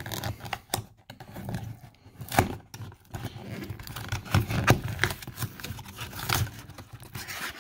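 A thin cardboard box being torn open by hand: the paperboard crackles, rips and scrapes, with many sharp snaps. The loudest snaps come about two and a half and nearly five seconds in.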